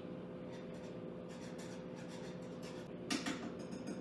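A whisk stirring coconut-milk curry sauce in a pan, making soft scraping strokes that grow louder about three seconds in, ending in a quick run of taps against the pan. A steady hum runs underneath.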